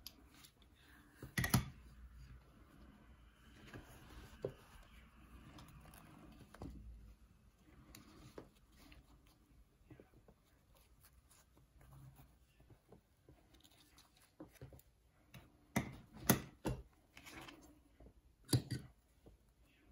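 Faint handling sounds of fabric flower work: cotton cloth and a satin petal rustling as they are moved and pressed, with a few sharp knocks on the tabletop, one about a second and a half in and two near the end.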